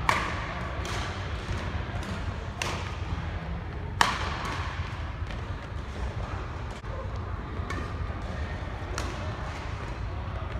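Badminton rally: sharp racket strikes on a shuttlecock with a short echo, the loudest about four seconds in, followed by fainter taps, over a steady low rumble from the hall.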